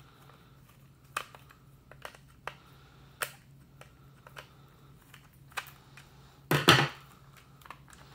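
Light clicks and small knocks of a screwdriver working screws in a plastic Trimline telephone handset, with a louder double knock about two-thirds of the way through. A faint steady low hum underneath.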